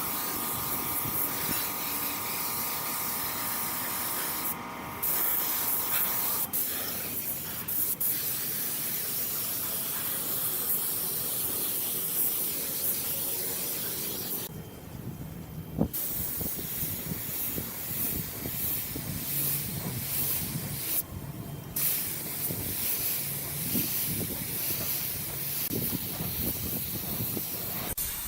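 Compressed-air spray gun hissing in long passes as finish is sprayed, stopping briefly three times when the trigger is let go.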